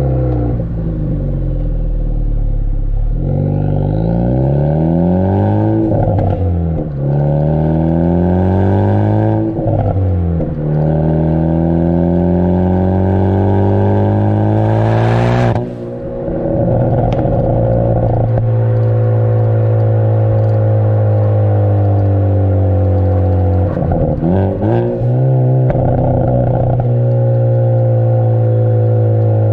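Ford Focus ST's turbocharged four-cylinder heard through a Borla cat-back exhaust, revving up and falling back several times as it pulls through the gears. Brief crackles and pops come from the pops-and-crackles tune as the revs drop, with a short hiss midway.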